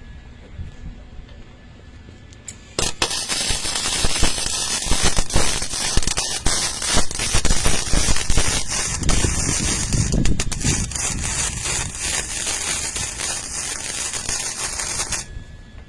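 Electric arc welder striking an arc about three seconds in and laying a weld bead with a steady crackle for about twelve seconds, then cutting off suddenly.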